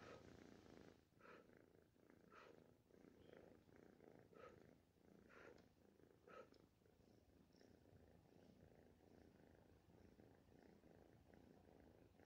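Siamese cat purring quietly and steadily, with short puffs of breath blown at it about once a second over the first six seconds or so.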